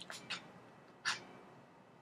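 Short scratchy scrapes as a thin tool pushes the blue stretch-fabric cover in under the edge of a bicycle saddle's shell: two quick ones at the start and a louder one about a second in.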